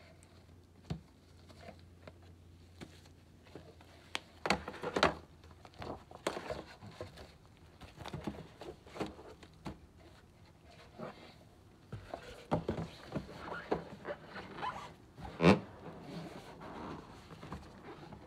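Gloved hands handling a board-game box and its packaging: scattered rustles and crinkles of plastic wrap, taps and scrapes on the plastic insert and cardboard. There are louder clusters of knocks about five seconds in, and one sharp knock about fifteen seconds in.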